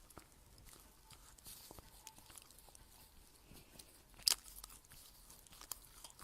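Close-miked chewing of crunchy food: a scatter of small crisp crackles, with one sharp, louder crunch about four seconds in and another near the end.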